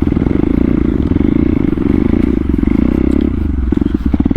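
Motorcycle engine running steadily at low revs, a rapid even pulse with no revving.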